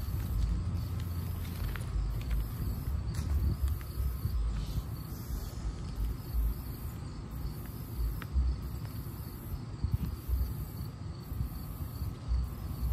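Insects trilling at a high pitch, broken by short gaps about once a second, over an uneven low rumble.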